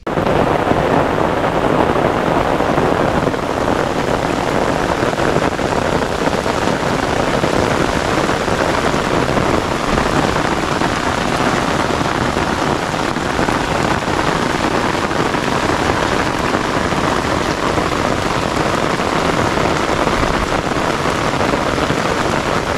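Heavy rain pouring steadily onto the river surface, a dense even hiss of drops that starts suddenly.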